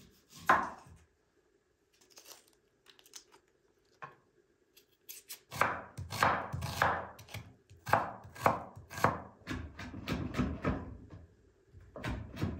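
Chef's knife chopping an onion on a wooden cutting board: a single knock about half a second in, a few light taps, then steady strokes about two a second from halfway through, quickening near the end.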